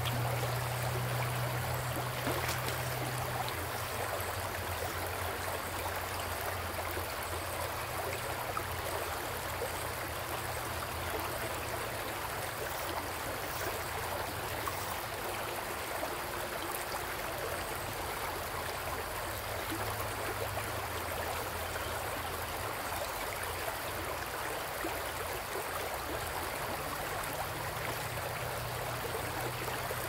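River water running over a shallow cobble riffle: a steady rushing and trickling. Beneath it is a low rumble that swells and fades.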